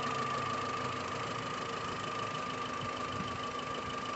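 Volkswagen Gol's 1.6 EA111 four-cylinder engine idling steadily. With a new water pump fitted, only the normal running sound of the engine is left; the noise from the worn pump shaft is gone.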